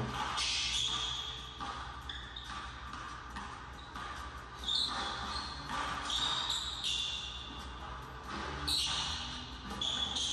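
A basketball being dribbled on a hardwood gym floor during one-on-one play, with several short high sneaker squeaks as the players cut, echoing in a large gym.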